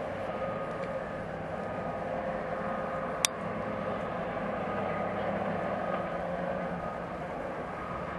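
A steady engine hum with one sharp click about three seconds in.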